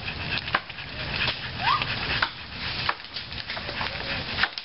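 Dry sticks and branches snapping and crackling in a quick, irregular string of sharp cracks over rustling brush.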